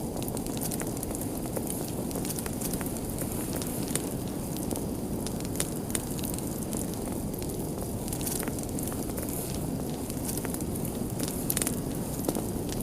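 Fire crackling, with frequent irregular sharp pops and snaps over a steady low rumble of burning, a few louder pops near the end.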